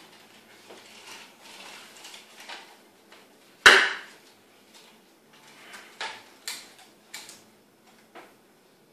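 Handling noise of a homemade arm-prosthesis mock-up as it is put on: rustling of its strap and cable, several light clicks, and one sharp knock of its hard parts a little after three and a half seconds.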